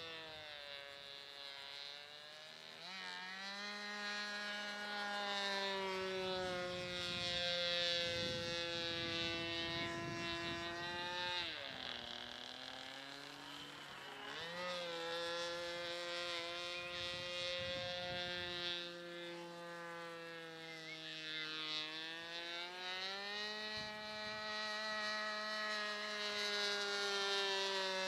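Model airplane's SC 25 two-stroke glow engine in flight, a steady buzzing note that slides down and back up in pitch as the plane passes and turns, with a deep dip about twelve seconds in.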